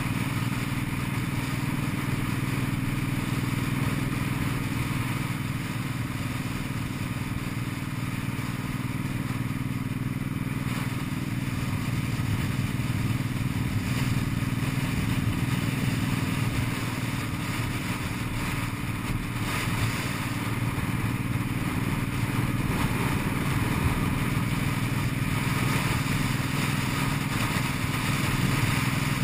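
Cruiser motorcycle engine running steadily while under way, its pitch and loudness staying level, with a constant rushing noise over it.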